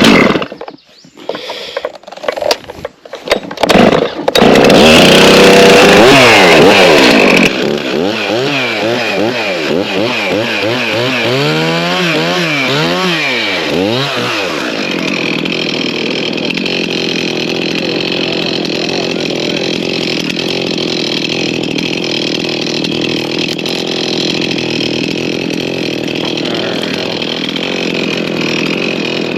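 Big gas-powered chainsaw starting up about four seconds in after a few short knocks. It runs at high revs, then its revs rise and fall repeatedly for several seconds before it settles into a steady run.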